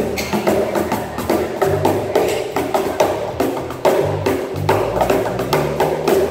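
Two cajons played by hand in a fast, busy rhythm of sharp slaps and deeper thuds, with an electric bass guitar playing notes underneath.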